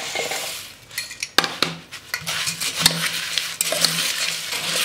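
Dry puffed rice pouring into a stainless steel vessel with a light rustle, then a spoon stirring it through the vegetables and spices, rustling and clinking against the steel from about a second and a half in.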